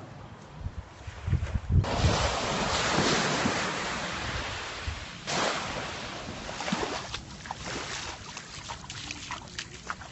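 Small waves washing onto a sandy beach: a sudden swell of surf noise about two seconds in that slowly eases, and another about five seconds in that fades away. Wind buffets the microphone at the start.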